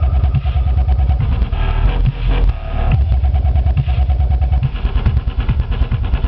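Loud, distorted bass-heavy electronic dance music with a dense, pounding low end and a rapid beat.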